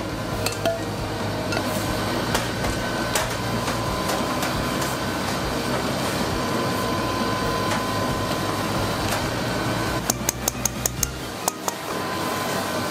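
A stainless steel sieve and spatula working against a metal bowl over a steady low hum: a few light knocks, then about ten seconds in a quick run of about eight sharp metallic clicks as the sieve is tapped on the bowl to shake the strained gelée through.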